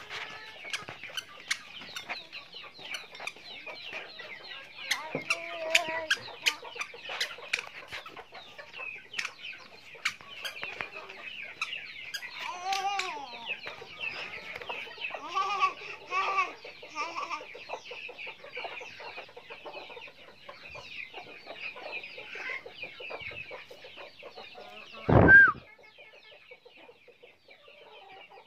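Chickens clucking around a coop yard over a steady high chirping, with scattered clicks and several short clusters of calls in the middle. A single loud, brief cry stands out about 25 seconds in.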